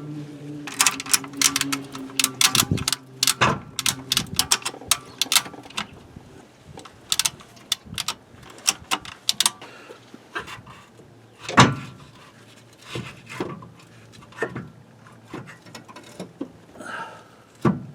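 Metal clinks and knocks as a PTU's housing and hand tools are worked against brackets under the car: a rapid run of sharp metallic clicks for about the first ten seconds, then scattered knocks with one heavier knock about two-thirds of the way through.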